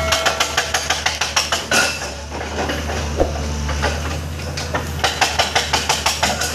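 Sunward crawler excavator's diesel engine running steadily, with two runs of rapid metallic clanking, about seven knocks a second, in the first second and a half and again near the end.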